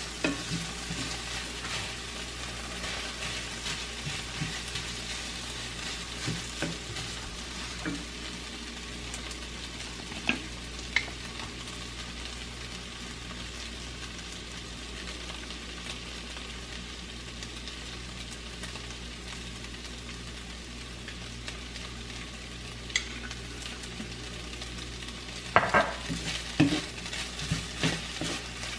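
Kimchi pork fried rice sizzling in a nonstick frying pan as a wooden spatula stirs and scrapes through it, with occasional sharp knocks of the spatula on the pan: two about ten seconds in and a cluster near the end.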